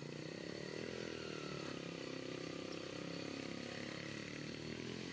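A small engine running steadily, its pitch rising slightly about a second in, fading out near the end.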